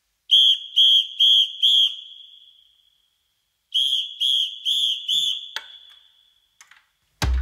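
A high-pitched whistle blown in two sets of four short blasts, about two a second, the second set fading out. Drums come in just before the end.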